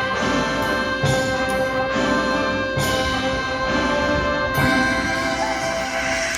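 High school marching band playing: brass holding long sustained chords over drum hits that come about once a second.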